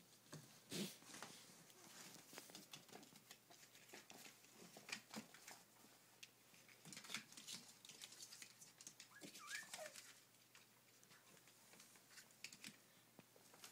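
Faint crackling and tapping of poodle puppies' paws moving on a plastic sheet, with one short falling puppy whimper about nine and a half seconds in.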